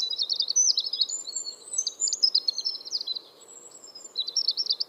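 Small bird chirping: rapid runs of quick, high, twittering notes, with a short lull about three seconds in, over a faint steady background hiss.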